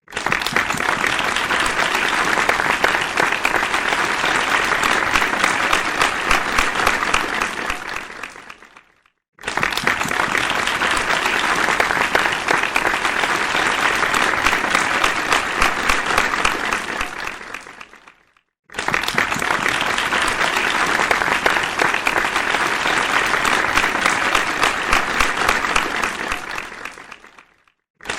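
Crowd applause, many hands clapping together. It comes in three rounds of about nine seconds each, every one starting abruptly at full strength and fading out, with a brief silence between rounds.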